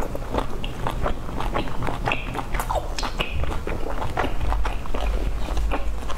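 Close-up chewing of sauce-dipped boiled dumplings: wet mouth clicks and smacks in quick irregular succession. A low hum runs underneath, stronger in the second half.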